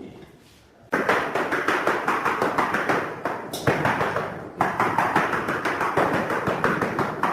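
Rapid, continuous tapping and scraping, many quick strokes a second, starting about a second in, with two brief pauses midway.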